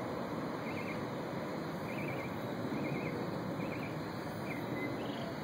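Short high bird chirps, repeated about once a second, over a steady rushing background noise.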